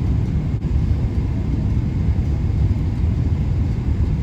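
Steady, loud low rumble with no clear pitch, flickering unevenly in level.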